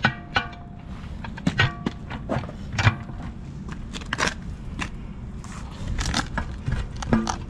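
Steel tire bars clanking and knocking against a semi-truck wheel rim while prying the tire off, in irregular sharp metal knocks, some ringing briefly.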